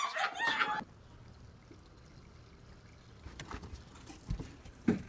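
A woman's shrieking and laughter, cut off suddenly about a second in. Then low outdoor background with a few faint clicks, a dull thump and a sharper knock near the end.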